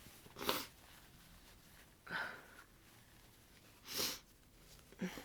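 Four short, muffled nasal bursts from a congested person with a head cold, spaced about a second and a half apart. These are the stifled sneezes and sniffles of a stuffed-up nose, into a tissue.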